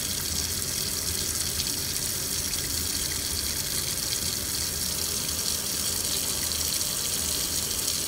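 Water running steadily from a sink faucet.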